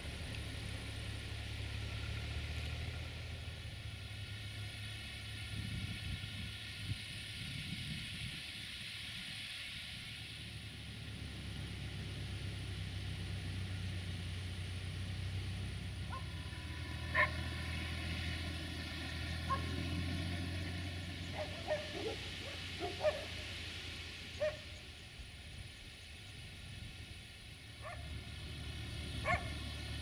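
A steady low hum with a dog barking a few times, in short separate barks, through the second half.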